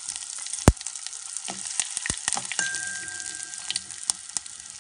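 Gingelly (sesame) oil sizzling in a steel pot with mustard seeds, fenugreek and asafoetida in it. Scattered sharp pops and crackles, the loudest a little under a second in, and a metal spoon stirring the oil.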